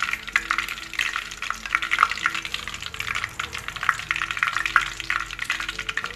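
Hot oil crackling and sizzling steadily in a cast-iron kadai as a perforated steel skimmer lifts out fried curry leaves. Faint background music plays underneath.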